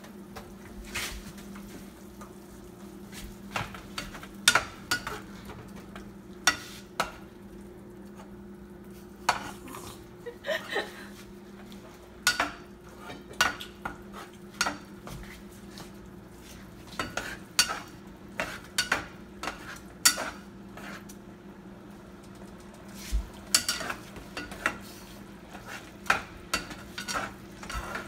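A black spatula stirring and scraping a sauce of coconut milk, onion, tomato and peppers in a nonstick frying pan, with irregular clacks and scrapes against the pan, over a steady low hum.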